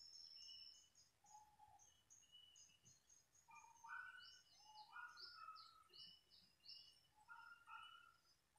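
Faint birdsong: several birds giving short whistled chirps and notes at different pitches, with a quick series of high notes in the middle.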